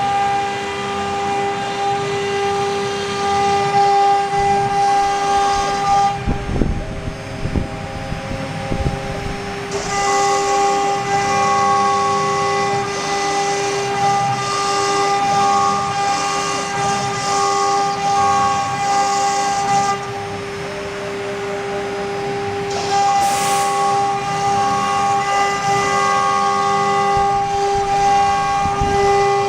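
CNC router's 3.0 kW water-cooled spindle whining at a steady high pitch while its bit carves wood. The cutting hiss eases for a few seconds about six seconds in and again around twenty seconds in.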